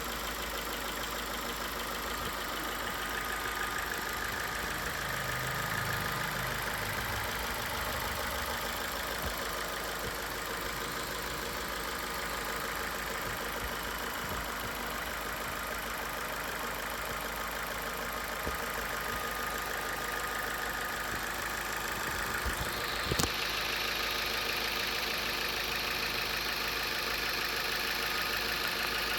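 Ford New Fiesta petrol engine idling steadily, with the light ticking that the owner takes for a hydraulic lifter (tappet) noise, now reduced after adding an engine treatment. A single brief knock about three-quarters of the way through, after which the running sounds brighter.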